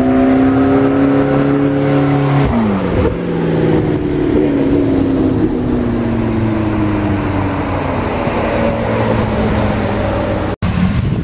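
A McLaren 650S's twin-turbocharged V8 accelerates past, its note rising and then dropping sharply in pitch about two and a half seconds in. A Ferrari 458's V8 follows, approaching and passing with a slowly falling note. The sound cuts out for an instant near the end.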